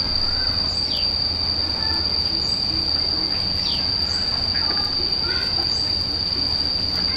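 A steady, high-pitched insect drone, with short descending bird calls repeating every second or so.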